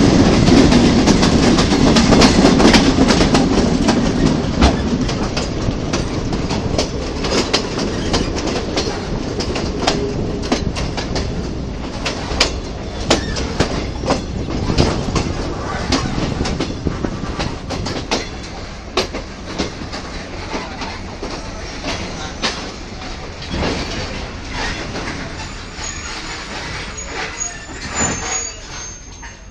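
Passenger train running on the rails, with a dense rumble and sharp wheel clicks over rail joints that grow quieter and sparser as it slows into a station. A thin high wheel squeal comes in near the end.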